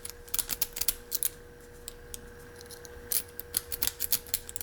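Lock-pick rake scrubbed in and out of the keyway of a Hermex CH-50 pin-tumbler padlock, the steel pins clicking rapidly as they are bounced. The clicks come in quick runs, pause for about a second and a half midway, then start again, over a faint steady hum.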